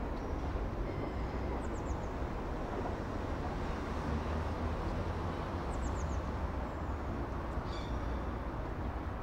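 Steady low engine rumble of a vehicle running, with two short runs of faint, high, falling chirps.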